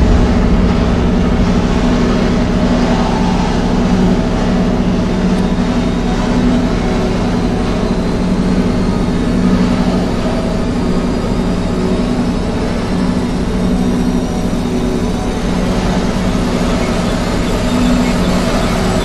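Turbofan jet engine running with a deep, steady rumble. A thin high whine rises slowly in pitch from about a third of the way in.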